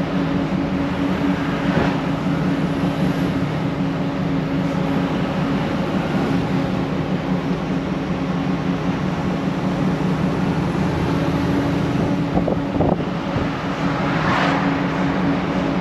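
Kenworth T680 tractor's PACCAR diesel engine running steadily at cruise with tyre and road noise, heard from inside the cab as an even, unbroken drone.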